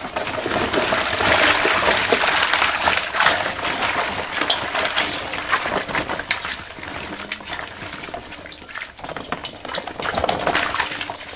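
Water splashing as a bagful of large climbing perch (koi fish) tumbles out of a plastic bag into a metal bowl of water, with many small knocks and splashes, busiest in the first half.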